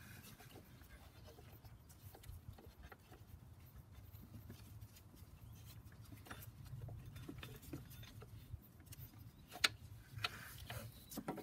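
Faint handling sounds of a rubber serpentine belt being fed around engine pulleys by hand: soft rubbing and a few light clicks and taps, the sharpest near the end, over a low steady rumble.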